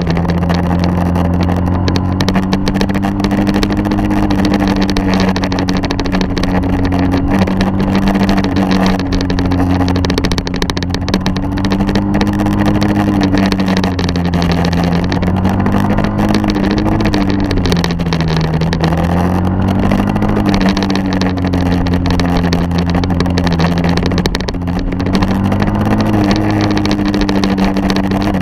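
Engine of a vehicle carrying the camera behind the skater, running steadily with its pitch slowly rising and falling as the speed changes, over a rush of wind and road noise.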